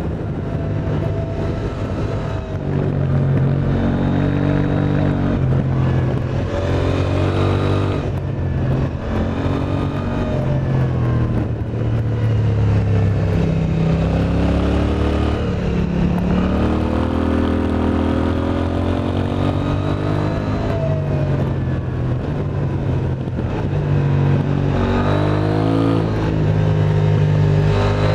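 KTM 890 Duke R's parallel-twin engine through an Akrapovic exhaust, accelerating hard through the gears: the engine note climbs, drops at each upshift, and climbs again, several times over.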